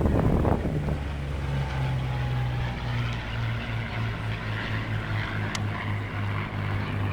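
Distant WWII fighter's V-12 piston engine and propeller droning in flight, the pitch dropping a little over the first couple of seconds, then holding steady with a slight pulsing. A gust of wind on the microphone covers the first second.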